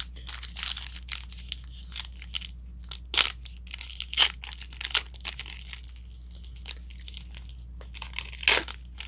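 Crinkling and crackling of plastic card packaging as trading cards are handled, with sharper crackles about three and four seconds in and a louder one near the end.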